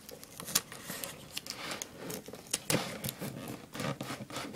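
Adhesive tape being pulled off its roll and pressed onto a cardboard cereal box, with scattered crackles, short rips and knocks as the cardboard is handled.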